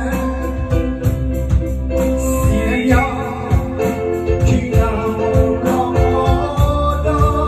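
A man singing a Vietnamese song into a microphone over amplified backing music with a steady beat.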